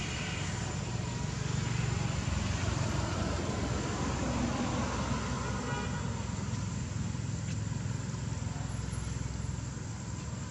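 Steady low background rumble with a faint hiss, easing slightly near the end.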